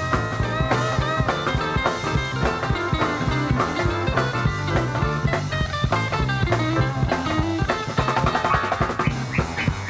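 Instrumental music with drums and guitar, a steady beat throughout.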